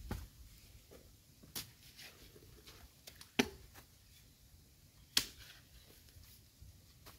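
A long-handled digging spade chopping into damp earth: four sharp strikes about every two seconds, the last two the loudest.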